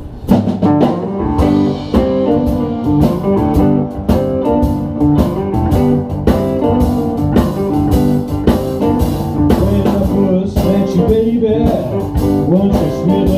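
Live blues band playing an instrumental intro: a guitar riff over bass and a steady drum beat, with bending lead lines in the last few seconds.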